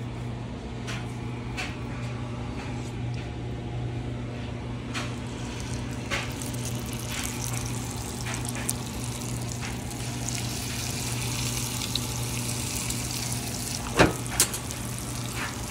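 Thin striped bass fillet pieces sizzling in hot butter and canola oil in a cast iron skillet, with scattered pops and one sharp click near the end. A steady low hum runs underneath.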